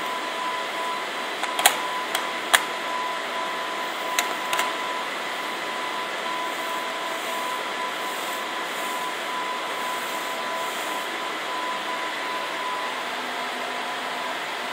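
Steady fan-like hiss with a faint steady high whine, broken by a few sharp clicks, three about two seconds in and two more about four seconds in.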